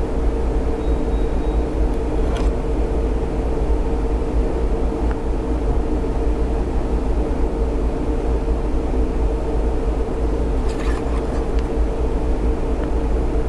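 Steady mechanical hum of a machine running, with a deep rumble and a constant mid-pitched whine, and a couple of faint clicks.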